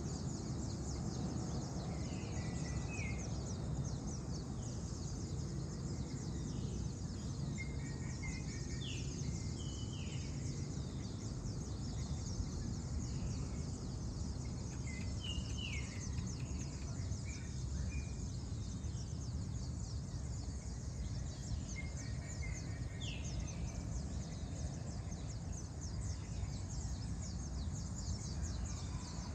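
Dawn ambience: insects chirring steadily over a low, even background rumble, with a bird giving short runs of quick calls every six or seven seconds.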